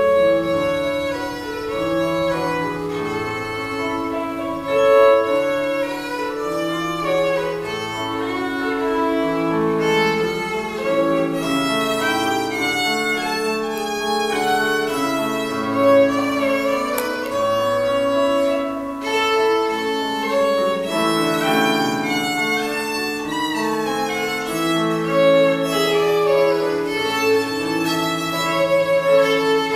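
Bowed violin playing a melody of held notes, with a digital piano accompanying underneath.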